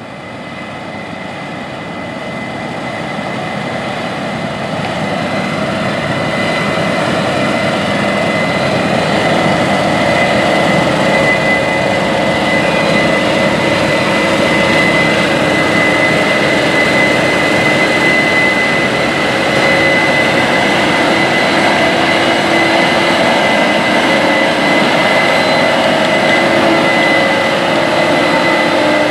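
Case IH 9250 Axial-Flow combine harvesting wheat: its 550 hp FPT C16 six-cylinder diesel and threshing machinery running hard, with a steady high whine over a dense drone. The sound grows louder over the first several seconds, then holds steady.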